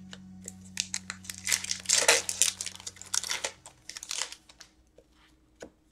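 Foil hockey card packs being torn open and the wrappers crinkled by hand: a dense run of crackling rustles, loudest about two seconds in, thinning out after about four seconds.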